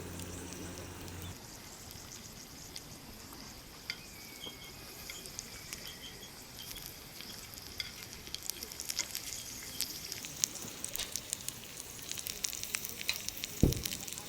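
Food sizzling in a pan over a campfire, with crackles and pops that come thicker from about halfway through. A single dull thump near the end.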